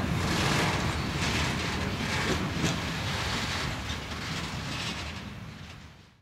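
Military freight train rolling away along the track, its wagon wheels giving a noisy rumble with scattered knocks that slowly grows fainter, with wind on the microphone. The sound fades out just before the end.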